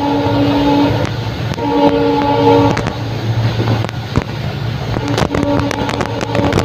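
Multi-tone horn of an EMD WDG4 diesel locomotive passing at speed, in two blasts: one ending about a second in, a second about a second long, over the train's low rumble. After the horn, the wheels of the ICF coaches clatter over the rail joints, the clicks thickest near the end.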